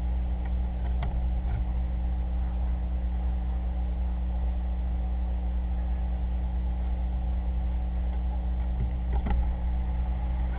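Steady low electrical hum with hiss, the self-noise of a cheap motion-triggered surveillance camera's recorder, with a faint click about a second in and another near the end.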